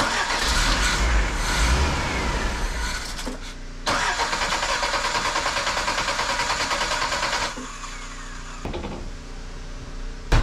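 1979 Toyota Corolla's four-cylinder engine being cranked by its starter in two long bursts, turning over with an even rhythm but not catching. It won't fire because the carburettor's float bowl is dry, its fuel inlet plugged by a broken float needle tip. A short knock near the end.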